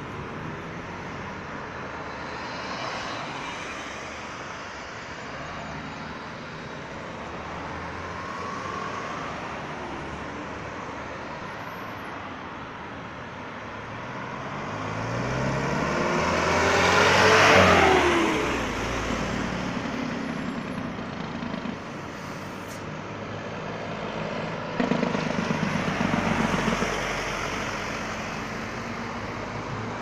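Road traffic going round a roundabout, cars passing steadily. About halfway through an Isuzu box truck passes close, its engine and tyres growing loud and then dropping in pitch as it goes by; near the end another vehicle's engine swells up again.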